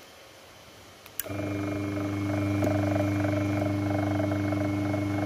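Gate opener's electric motor switched on by the remote: a click about a second in, then the motor runs with a steady mains hum. The motor now works after the repair.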